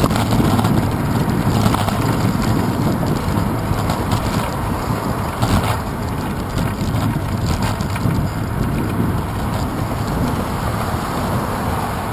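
Wind buffeting the microphone of a handlebar-mounted GoPro Hero 2 on a moving bicycle: a steady rumbling noise, strongest in the low end, mixed with the rolling noise of the bike.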